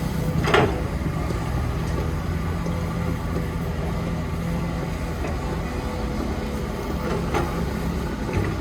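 Heavy construction machinery's diesel engine running steadily with a low rumble, with two short sharp sounds, one about half a second in and one near the end.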